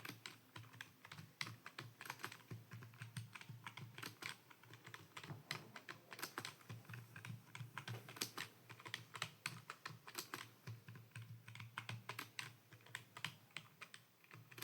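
Typing on a computer keyboard: fast, uneven key clicks, several a second, with the space bar now and then, during a home-row touch-typing drill.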